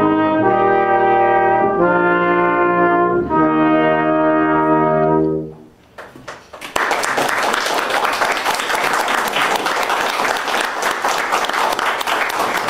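Brass instruments playing a few long held chords that stop about five seconds in. Moments later, the listeners break into steady applause.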